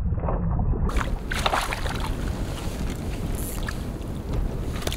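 Wind buffeting the microphone, a steady low rumble, with a few short scuffs and knocks about a second or two in.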